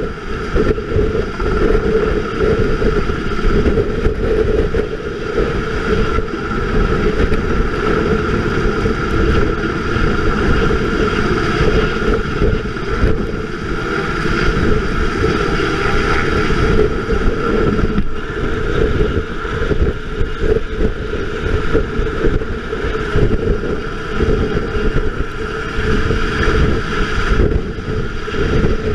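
Black Hawk helicopter hovering close overhead: steady rotor and turbine noise, with rotor-wash wind battering the microphone.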